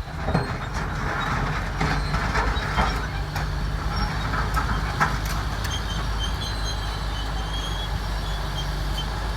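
Heavy earthmoving machinery at work: a large diesel engine running steadily, with sharp metallic clanks and knocks of steel on rock, clustered in the first five seconds.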